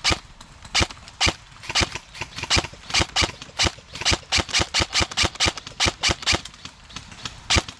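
Airsoft guns firing: a run of sharp cracks at an uneven pace, about three a second, some near and loud, others fainter.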